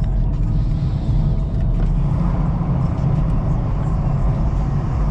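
BMW X4 xDrive35i heard from inside the cabin while driving at a steady pace: an even low rumble of the engine and tyres on the road, with no revving.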